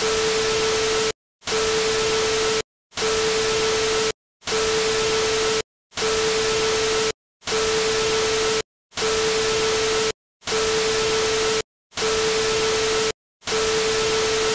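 An electronically made sound effect: bursts of static-like hiss with a steady hum-like tone inside, about a second each and cut by short dead-silent gaps, repeating evenly about once every one and a half seconds, ten times over.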